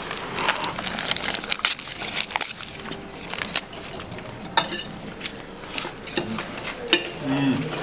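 A table knife and cutlery clinking and scraping against a plate in irregular sharp clicks.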